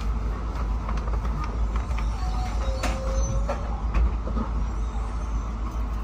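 Inside an N700S Shinkansen car as it pulls into the platform: a steady low rumble of the train running, with a faint brief whine and a couple of clicks about halfway.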